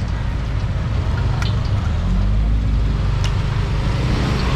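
Roadside street-food ambience: a steady rumbling roar of traffic, with a motor vehicle passing about two seconds in and a couple of sharp clicks.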